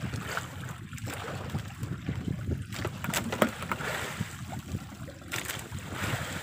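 Wind buffeting the microphone over the steady wash of the sea along an outrigger boat, with a few short sharp rustles.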